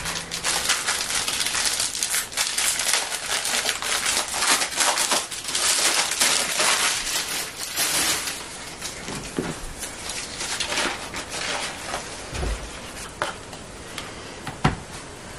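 Crinkling and rustling of paper as a roll of ready-made pastry in its baking paper is handled and unrolled, dense for the first half and quieter after. A couple of soft knocks near the end, the sharpest just before the end.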